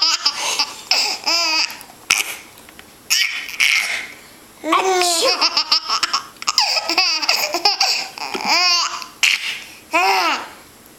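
A baby laughing hard in a string of high-pitched bursts, with short pauses between them.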